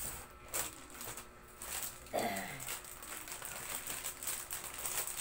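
Clear plastic packaging bags crinkling and rustling as plastic-wrapped slippers are handled and moved in and out of a cardboard box. A short vocal sound with a falling pitch comes about two seconds in.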